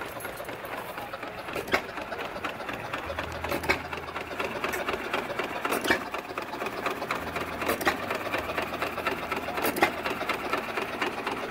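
Antique hit-and-miss stationary engine running, with a sharp firing knock about every two seconds over the steady clatter of its flywheels, belt and chain driving a wooden-bucket ice cream churn.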